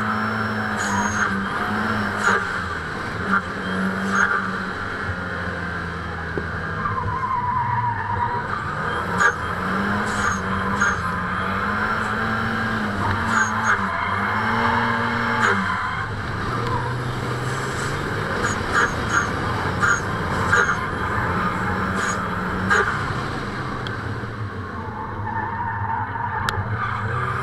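Drift car engine revving up and down through a slide, its pitch rising and falling again and again as the throttle is worked. Tyres squeal in places, notably about a third of the way in and again near the end, with several sharp knocks along the way.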